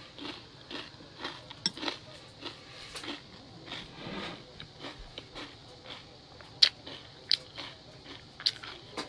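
Close-up chewing of a mouthful of crunchy cereal in milk: a steady run of soft crunches, two or three a second, with a few sharper clicks in the second half.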